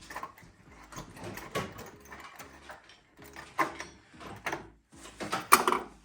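Irregular clunks and rattles of metal tools and parts being handled, with a few sharper knocks, the loudest near the end.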